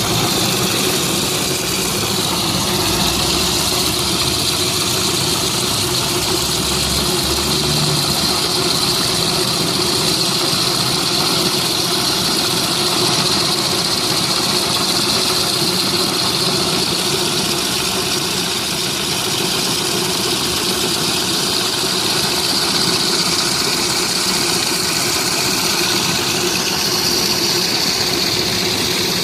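Push pressure washer with added steam, running steadily: an engine drone under a constant high hiss of spraying water.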